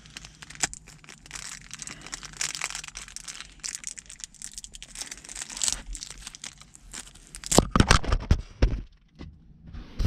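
Plastic film crinkling and crackling in a stream of small clicks, then a cluster of loud thumps about three-quarters of the way through.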